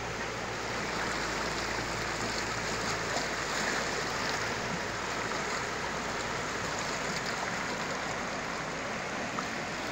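Fast river water rushing and churning through turbulent rapids, a steady, even rush. A low hum fades out about three seconds in.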